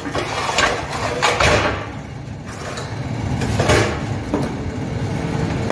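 Heavy steel plate and a heavy-wall steel pipe being set down and shifted on a steel welding table: several short scraping clanks, over a steady low hum.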